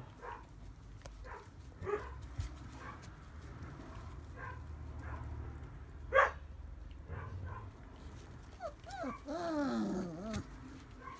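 Rough collie puppies about 39 days old giving short yips and squeaks, the loudest about six seconds in, then a run of whining whimpers near the end that slide up and down in pitch.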